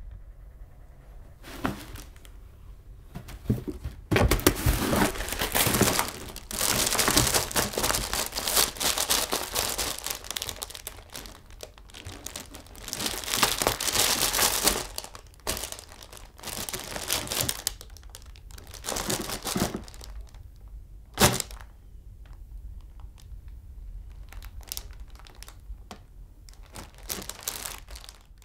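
A cat clawing and wrestling with a cardboard box and a blue cat scratcher pad: long stretches of dense scratching, rustling and tearing through the first half, then shorter scattered bursts, with one sharp thump about three-quarters through.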